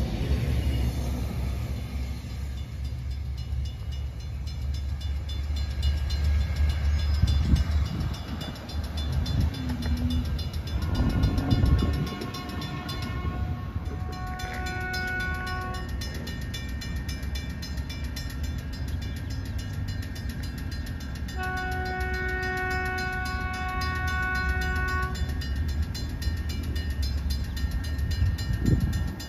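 Sprinter diesel multiple-unit train sounding its horn in several held blasts over a steady low rumble: shorter blasts around the middle, a long, strong one about three-quarters of the way through, and another starting right at the end.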